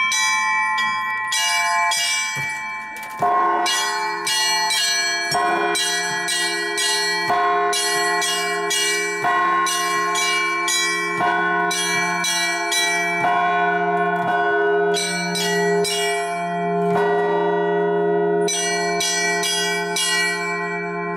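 Church bells rung for Easter: smaller bells struck again and again in quick patterned clusters, with brief gaps, while a larger, deeper bell struck about three seconds in keeps humming underneath.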